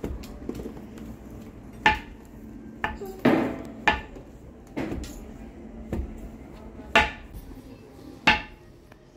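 Sesame seeds being pounded with a pestle in a mortar: heavy strikes with a short ringing after each, about one a second and unevenly spaced, around eight in all.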